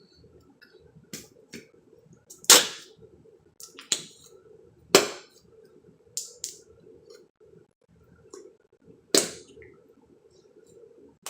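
Sticky slime being squeezed and worked by hand, trapped air escaping in short, sharp fart-like pops: about a dozen, the loudest about two and a half, five and nine seconds in.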